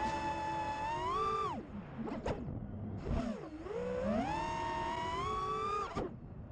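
FPV quadcopter's T-Motor F40 III 2400kv brushless motors whining, the pitch climbing and falling with the throttle. The whine drops away sharply about one and a half seconds in, dips low and climbs back around three and a half seconds, and cuts off suddenly near the end.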